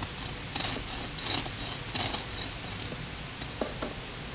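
Serrated bread knife sawing through a baked loaf of banana bread, with a rasping scrape on each back-and-forth stroke about every two-thirds of a second. A couple of light knocks come near the end.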